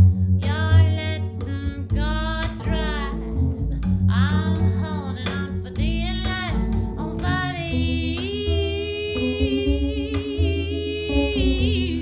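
A woman singing a slow melody over upright double bass and electric guitar. Her phrases bend up and down, then settle into one long held note near the end, with the bass notes underneath.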